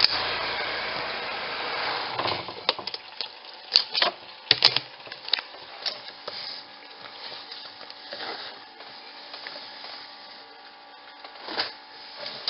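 Spin-dryer tub of an Auauna portable twin-tub washing machine running a short spin to throw soapy water out of the wash, its motor giving a faint steady hum. Several sharp knocks and rattles come between about two and six seconds in, with a few softer knocks later.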